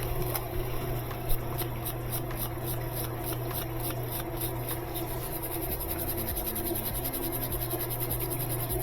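Rhythmic scratching strokes on a rusty metal bolt, a few a second, quickening into fast, dense scrubbing about five seconds in, over a steady low hum.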